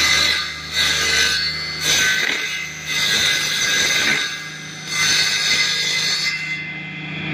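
Wood planing machine running with a steady motor hum, its cutter loudly working wood in about five surges roughly a second apart, the last dying away near the end.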